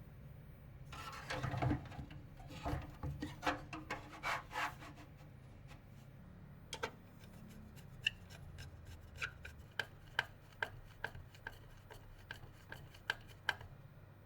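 Hands working on computer parts: a few seconds of rubbing and scraping, then a run of light, sharp clicks, about two a second.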